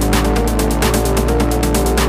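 Background electronic music with a fast, steady beat over held chords.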